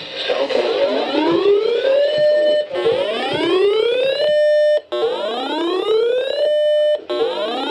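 Whooping electronic alarm: a tone sweeps up in pitch over about two seconds, holds briefly at the top and cuts off abruptly, repeating three times with a fourth sweep starting near the end.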